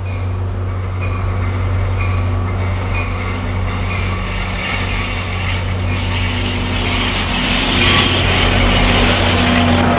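GP40PH-2A diesel-electric locomotive pulling into the station and passing close by, its engine running with a steady low drone that grows louder as it approaches. About eight seconds in, as the locomotive goes past, it is loudest, with a rush of engine and wheel noise.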